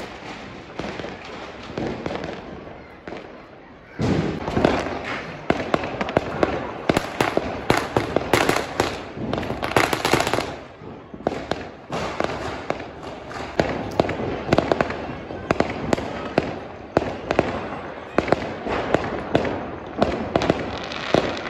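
Many fireworks going off: a continuous run of bangs and crackling, with a sudden loud bang about four seconds in and a thick stretch of crackling a few seconds later.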